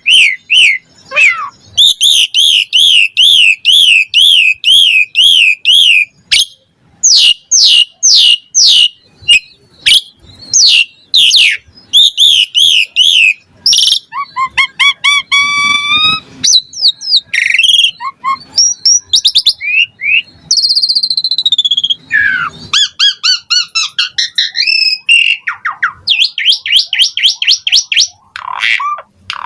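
Pied starling (jalak suren) in full song: a loud, varied string of whistles, fast warbling trills and harsh notes, phrase after phrase with short pauses, including mimicked calls of other birds.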